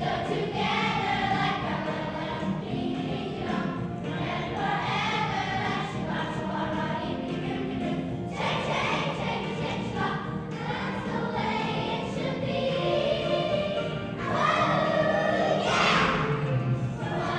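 A children's chorus singing a song together over instrumental backing, the singing getting louder near the end.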